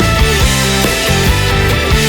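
Rock music with distorted guitars and drums.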